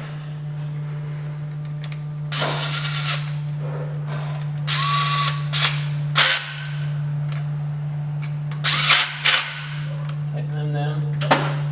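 Cordless power driver spinning bolts into the starter relay bracket in several short runs, one with a brief motor whine, over a steady low hum.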